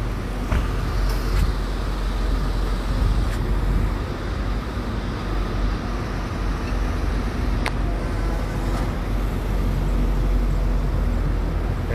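Steady city traffic noise, a low rumble of vehicles on the surrounding streets, with one sharp click about two-thirds of the way through.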